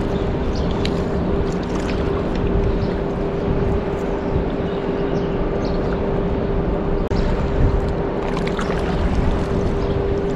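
A motor running steadily: a constant hum at one pitch under an even rushing noise.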